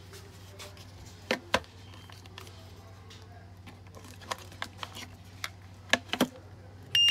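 Scattered plastic clicks as a remote-start key fob is handled and its buttons are pressed over a YellowKey remote tester. Near the end the tester gives a loud, steady, high-pitched beep, its signal that it is picking up the fob's transmission.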